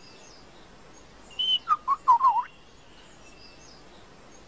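Lyrebird song: a quick run of five or six loud whistled notes that slide up and down, starting about a second and a half in.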